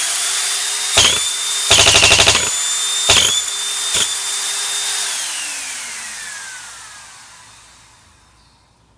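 Vacuum cleaner motor running with a steady high whine, broken by a few sharp clacks and a rattle lasting about a second; about five seconds in it is switched off and winds down, its whine falling in pitch and fading away.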